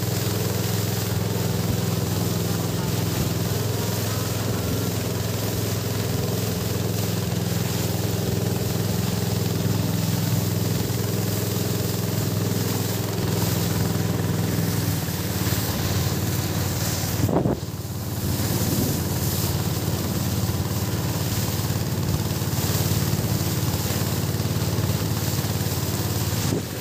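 Small boat's engine running steadily under way, with wind and water rushing past, and a brief dip about two-thirds of the way through.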